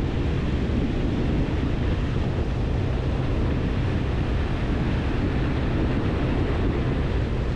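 Pontoon boat under way at speed: steady wind buffeting the microphone and water rushing past the hull over a low engine drone.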